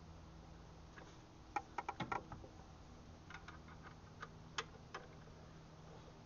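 Metal wrench and breaker bar clinking and tapping as they are worked into place on the serpentine belt tensioner bolt. There is a quick cluster of sharp clicks about a second and a half in, then a few single taps.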